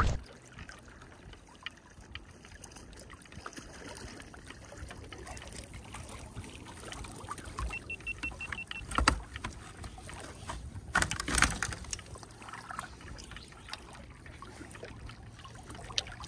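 Small lake waves lapping and sloshing against a wader, with a few sharper splashes, the loudest about eleven seconds in.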